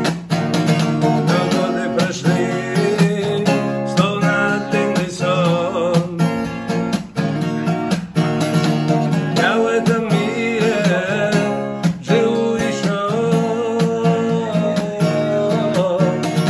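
Acoustic guitar strummed in a steady rhythm, with a capo on the neck, playing an instrumental passage of a song.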